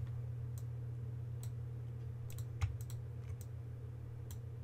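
Scattered clicks of a computer mouse and keyboard, about nine in all, several close together in the middle, over a steady low electrical hum.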